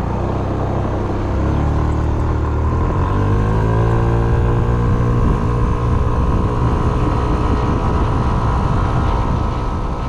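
Yamaha Smax 155 scooter's single-cylinder engine pulling away, its pitch rising over a couple of seconds and then holding steady at cruising speed, with wind noise over it.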